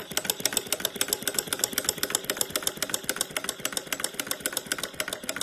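Brass twin-cylinder flame-licker vacuum engine running over an alcohol burner, its valve gear and linkages making rapid, even clicking.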